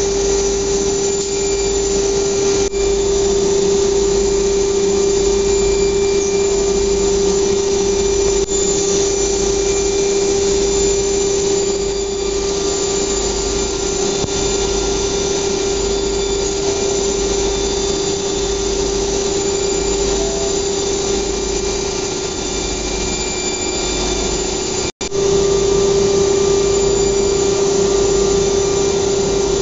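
Cabinet-making CNC router running: a steady whining tone over the rush of its dust extraction. The sound cuts out for an instant near the end, then the same steady machine noise carries on.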